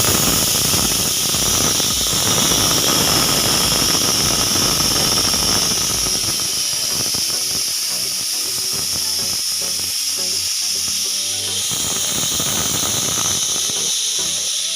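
Pressure cooker whistle: steam forced out past the weight valve in a loud, steady hissing whistle with several high tones, the sign that the cooker has reached pressure and is venting.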